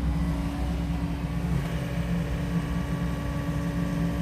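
SANY SY80U mini excavator's diesel engine running steadily, with a constant whine from the machine as the boom swings round.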